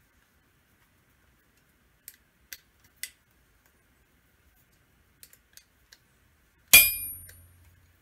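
Light metallic clicks of steel die parts and screws being handled, then near the end one loud metal clang that rings for about a second as a piece strikes hard metal.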